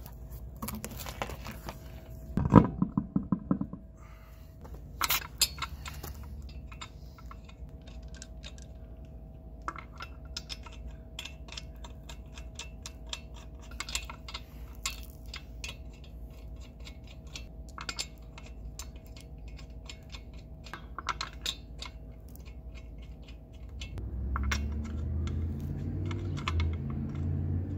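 A truck wheel going onto the hub with a few heavy knocks, then light irregular metallic clicking as lug nuts are spun onto the wheel studs by hand. A low rumble comes in near the end.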